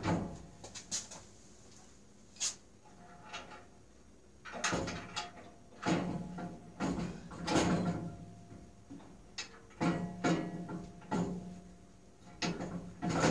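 The table of a 14-inch JET bandsaw being set back on and fitted to the saw: a run of irregular metal clunks and knocks, several ringing briefly.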